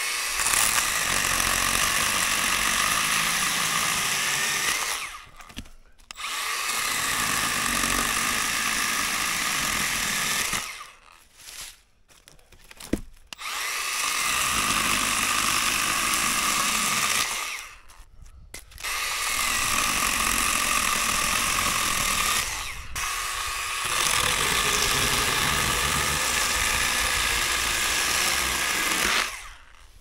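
Milwaukee M12 Hatchet cordless pruning saw cutting a dry jack pine, running with a steady high whine in five runs of a few seconds each, with short pauses between cuts.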